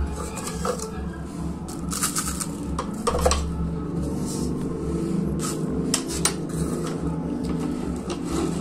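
Metal spoon and kitchen containers being handled, making a few scattered clinks and knocks, the loudest about three seconds in.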